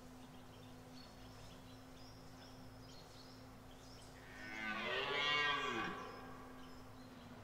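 Red deer stag bellowing once during the rut, a single roar of about a second and a half that starts about four seconds in, its pitch rising and then falling away.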